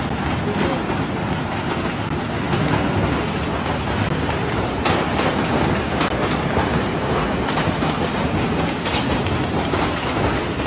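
Hailstorm with heavy rain: hailstones and rain striking the ground and nearby surfaces, a dense steady rush of noise dotted with many small sharp impacts.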